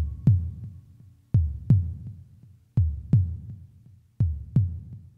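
Slow, deep heartbeat sound effect: paired lub-dub thumps repeating about every second and a half, four pairs in all.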